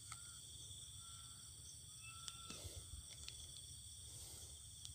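Faint steady insect chorus of crickets with a high ringing drone, and a few short level whistled notes about a second apart. One or two light clicks.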